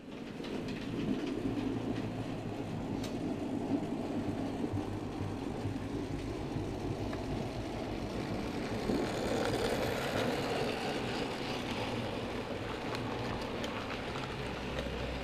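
Model train running along the track: a steady rumble of motor and wheels with scattered faint clicks, a little louder about nine seconds in.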